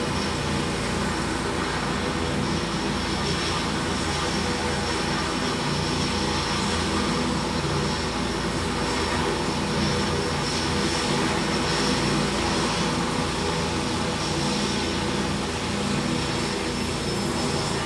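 Helicopter running on the ground with its rotor turning: a steady turbine engine and rotor noise with a constant high whine.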